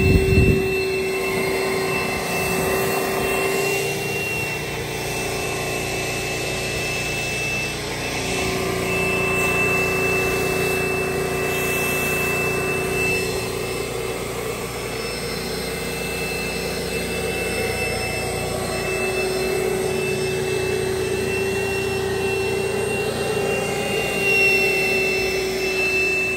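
Wet/dry shop vacuum running steadily, a constant motor whine over a rushing air sound that shifts slightly in pitch and strength now and then as the nozzle works.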